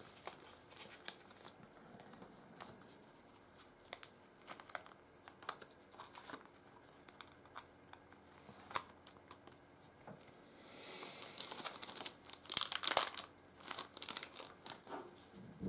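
Trading cards being handled: light scattered clicks as stiff cards are picked up and set down, then about eleven seconds in a few seconds of plastic crinkling.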